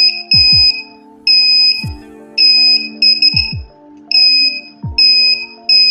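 Small piezo buzzer in a hobby electronics circuit beeping repeatedly with a single high-pitched tone. The beeps are short and unevenly spaced, about ten of them, and they are the loudest sound, over background electronic music.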